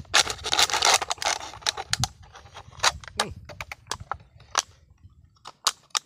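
Thin plastic packet crinkling as it is handled and cut open with a knife: a dense rustle in the first second, then scattered sharp crackles.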